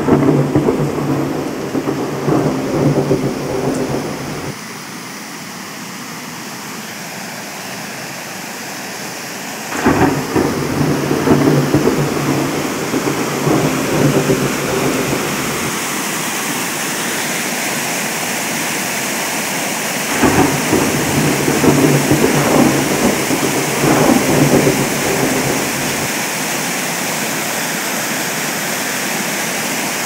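Rain and thunder sound effect: a steady hiss of rain with three long rolls of thunder. Each roll starts with a sharp crack, at the start, about ten seconds in and about twenty seconds in.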